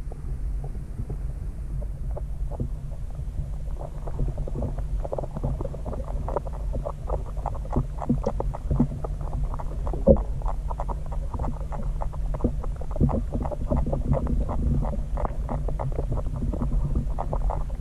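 Muffled underwater sound in an aquarium, picked up by a camera submerged in the tank: a steady low hum with many small, irregular clicks and ticks, one a little sharper about ten seconds in.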